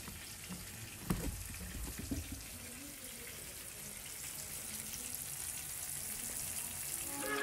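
Flour-coated fish pieces shallow-frying in hot oil in a frying pan: a steady sizzle, with a few light knocks about one and two seconds in.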